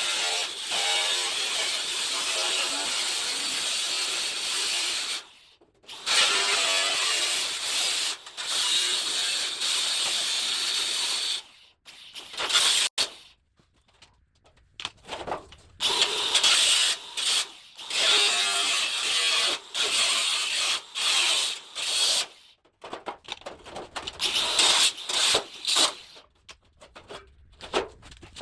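A power tool cutting sheet-metal body panel in stop-start runs: a few seconds of cutting at a time, broken by short pauses, the runs growing shorter and choppier toward the end.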